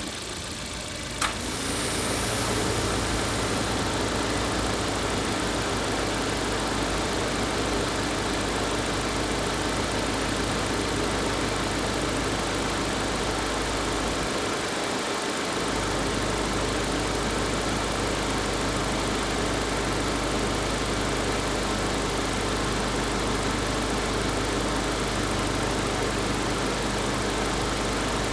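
Suzuki Jimny Sierra JB74 idling. About a second in there is a sharp click and the air-conditioning blower comes on with a steady rush of air. The air conditioning starts normally, without the loud squawk this model can give at its first start after standing.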